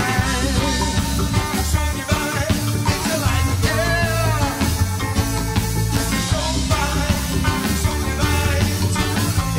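Large live reggae band playing a full groove: a heavy, steady bass line and drums under a melodic lead line that bends in pitch.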